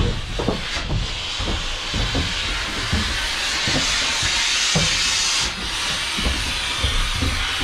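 A smoke grenade hissing as it burns, a loud steady rushing hiss that cuts off suddenly about five and a half seconds in, with scattered short knocks and clicks around it.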